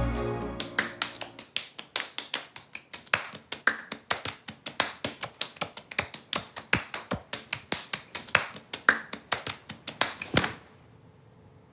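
A man and a young girl playing a fast hand-clapping game, palms smacking together and against each other's in a quick, even rhythm of about four claps a second. The clapping stops suddenly near the end, leaving faint room tone, and the tail of a song fades out at the very start.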